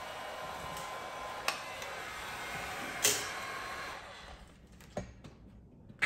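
Heat gun blowing steadily, with two sharp clicks about one and a half and three seconds in. It shuts off about four seconds in and fades out, and one more knock follows.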